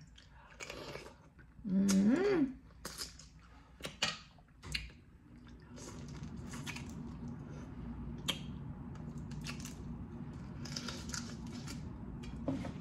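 Close-up eating sounds of boiled blue crab: crackling and clicking of shell being picked apart, with wet chewing and finger-licking. A short "mm" hum comes about two seconds in, and a low steady hum sets in about six seconds in.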